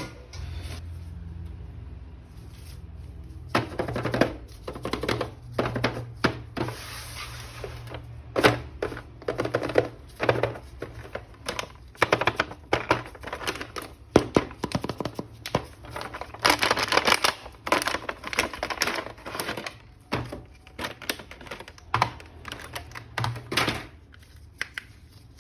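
Hands handling a plastic toy action figure and its packaging: an irregular run of plastic clicks and knocks, with stretches of crinkling and tearing about a third of the way in and again past the middle.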